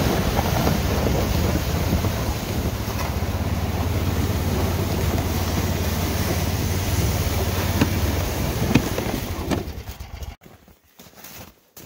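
Snowdog tracked snow machine's small gasoline engine running steadily as it tows a sled through snow, with wind buffeting the microphone. It slows and the engine cuts off abruptly about ten seconds in.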